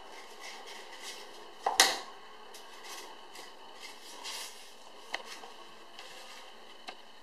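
A dog working at a thick cardboard tube on a tiled floor. The tube knocks sharply against the tiles twice in quick succession about two seconds in, followed by a few lighter clicks and some soft scraping.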